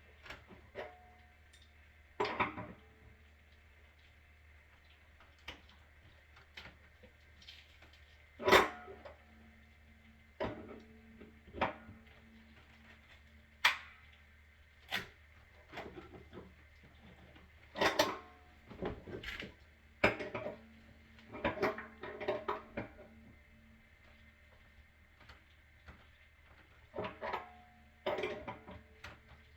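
Scattered metallic clanks and knocks of tools and pipe fittings being handled during plumbing work, irregularly spaced, the loudest knock about eight seconds in.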